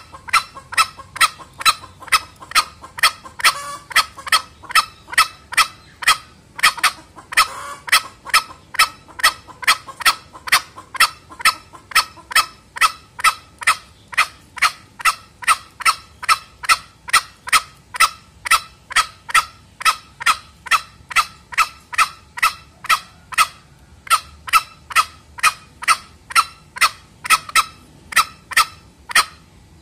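Male green junglefowl giving its lure call: a long, even run of short, sharp notes, about two a second.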